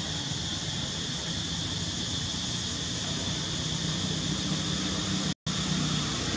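Steady outdoor background noise: an even hiss with a constant high-pitched band over a low hum, no clear animal calls, broken by a brief total dropout about five seconds in.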